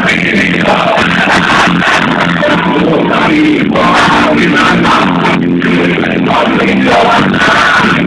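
A live band playing loud music on stage, with electric guitar and singing.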